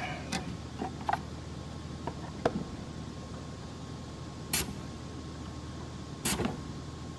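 Light clicks and taps of tools working the leaking Schrader valve at a car's A/C service port, then two short hisses about a second and a half apart.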